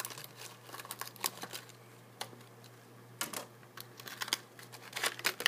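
Product packaging being handled and opened by hand: a scatter of irregular small clicks and crinkles, busier about three seconds in and near the end.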